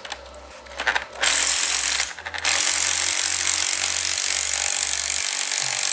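Small cordless impact wrench hammering as it drives the threaded rod of a coil spring compressor, compressing a strut's coil spring. It starts about a second in, stops briefly, then runs steadily.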